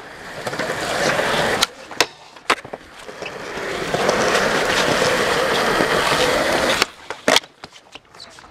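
Skateboard wheels rolling on smooth concrete, swelling and fading as the board carves, broken by a few sharp clacks of the board, two of them close together near the end.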